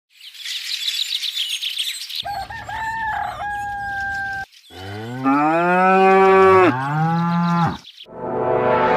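Birds chirping, then a held whistling tone, then a cow mooing twice in two long, low calls that rise in pitch; a swelling rush of sound begins near the end.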